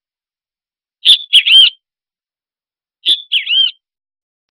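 A bird's chirping, whistled call, sounded twice about two seconds apart. Each call is a short sharp note followed by a couple of quick swooping whistles.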